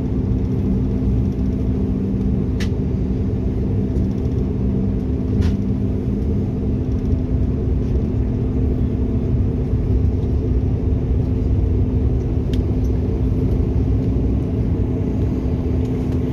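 Steady cabin drone of a Bombardier Q400 turboprop airliner on the ground, a low rumble with a steady hum running through it. One lower hum drops out about six seconds in, and there are a few faint clicks.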